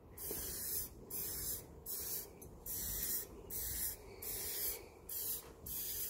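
Aerosol can of insect repellent spraying in a rapid series of short hissing bursts, each about half a second long, as it is sprayed onto a plastic headlight lens.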